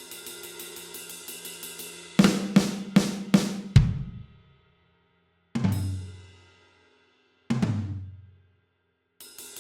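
Drum kit in an experimental grindcore track playing a stop-start break. It opens with quiet fast hi-hat ticking, then five loud drum-and-cymbal hits come in quick succession. Two single hits follow, each ringing out into silence, and the quiet ticking returns near the end.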